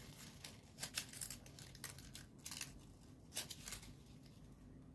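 Folded paper origami units rustling and crinkling as they are handled and slotted together, in short crackles about four times.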